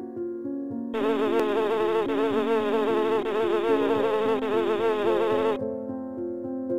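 A flying insect buzzing, its pitch wavering up and down; it starts about a second in and cuts off suddenly about a second before the end. Soft keyboard music plays underneath.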